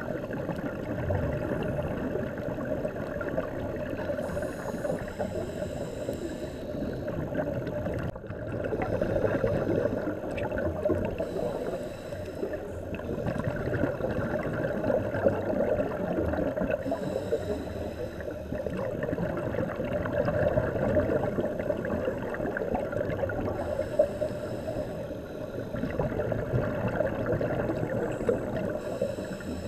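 Muffled underwater noise through a dive camera housing: a steady rushing with bubbling, and a short higher hiss every six or seven seconds, in the rhythm of a scuba diver's regulator breathing.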